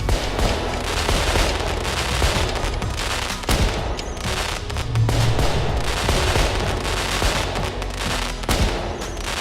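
New Year fireworks sound effect: a dense run of bangs and crackles, with deep booms, one strong boom about five seconds in.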